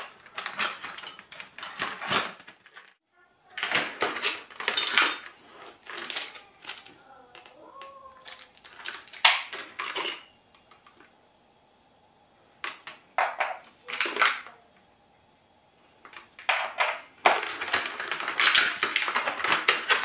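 Clear plastic blister packaging and its cardboard backing being handled and pulled apart: irregular spells of crackling and crinkling, broken by a couple of short pauses.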